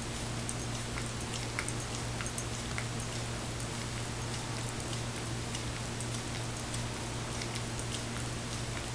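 Greyhound licking dog ice cream out of a small cup: faint, irregular tongue clicks and smacks against the cup, over a steady low hum.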